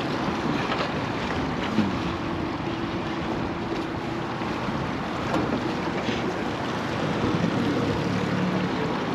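Steady wind on the microphone and water lapping against an aluminum boat's hull.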